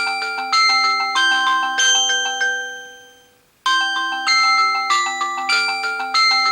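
Mobile phone alarm ringtone: a short melody of struck, ringing notes that fades out about three seconds in, starts over about half a second later, and cuts off suddenly near the end.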